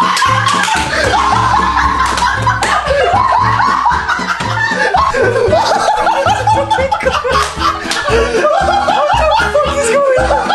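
Background music with a steady beat, and people laughing over it.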